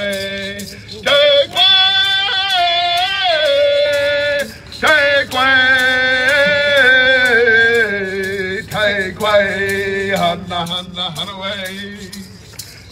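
A man singing a Mother Earth honoring song through a microphone and PA, in long held, wavering notes, with a brief break about four and a half seconds in.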